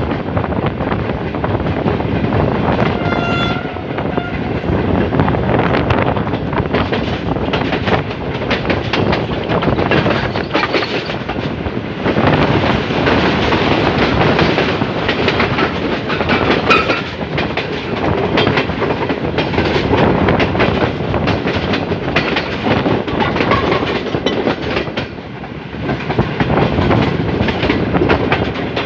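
Passenger train running along the track, heard from beside the coach: a steady rush of wheel and wind noise with constant fine clattering from the wheels over the rails.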